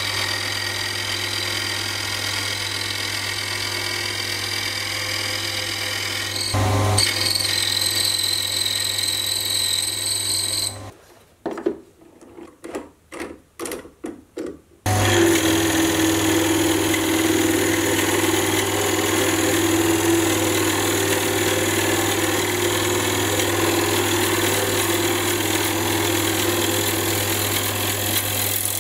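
Sieg C3 mini metal lathe running, its motor humming steadily while a high-speed steel tool cuts a hardwood blank. About 11 seconds in the lathe stops and a quick string of clicks follows as the blank is re-gripped in the three-jaw chuck with the chuck key; about 15 seconds in the lathe starts again and carries on cutting the wood.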